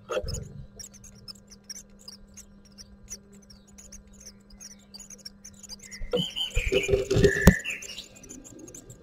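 Great tit nestlings' faint, rapid high cheeps from inside the wooden nest box while a parent feeds them. About six seconds in come short louder chirps, scrabbling and knocks on the box, ending in one sharp knock.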